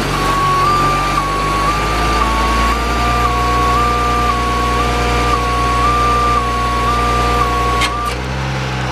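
A 2006 GMC C7500 aerial truck's warning alarm sounding a steady two-tone warble that switches pitch about twice a second, over the truck's diesel engine running. The engine note changes about three seconds in, and the alarm cuts off with a click near the end.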